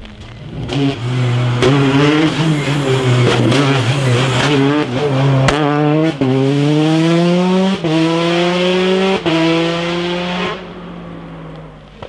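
Peugeot 208 rally car engine at high revs. The revs waver through a bend, then it accelerates hard with three quick upshifts about a second and a half apart, each a rising pitch cut by a short drop. It fades away near the end.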